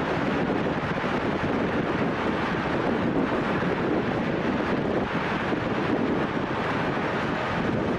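Strong wind blowing across the microphone: a steady, loud rushing noise with no let-up.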